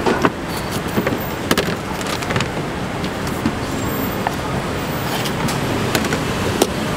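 Steady road-traffic noise with a handful of sharp knocks and clicks: a large knife chopping through a fried roti onto a wooden cutting board and tapping on a stainless-steel counter.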